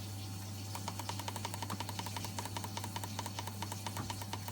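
Rapid, even mechanical clicking, about six or seven a second, starting under a second in, over a steady low hum.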